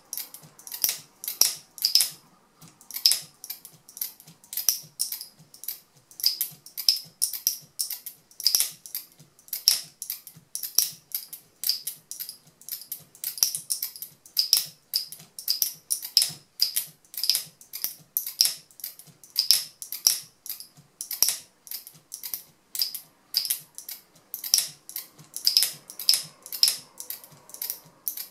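Locking mechanism of a speargun camera mount being snapped open and shut again and again by hand: sharp clicks, two or three a second and often in close pairs. This is a durability test of the lock, repeated thousands of times.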